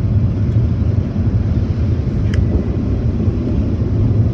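Steady low rumble heard inside a pickup truck's closed cab as it passes through an automatic tunnel car wash, with one short click about halfway through.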